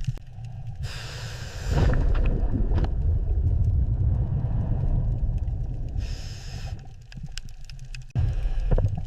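Deep, steady mechanical rumble of heavy machinery, with two short bursts of hiss, one about a second in and one about six seconds in. The rumble cuts out abruptly for a moment near the end, then comes back.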